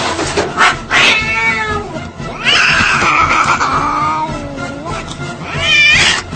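A cat yowling in three drawn-out calls: a wavering one about a second in, a long one of over two seconds that slides down in pitch, and a short one near the end.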